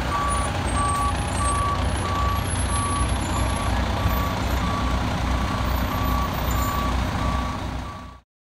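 Fire truck's diesel engine rumbling close by, with a backup alarm beeping steadily about twice a second. The sound cuts off abruptly near the end.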